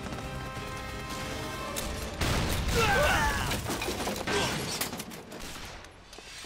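Tense film score, then a sudden grenade explosion about two seconds in, followed by a rush of noise and high, wavering cries.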